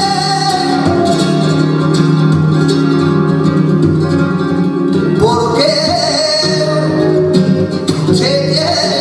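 Flamenco tangos: a male singer holds long, sliding notes over flamenco guitar accompaniment.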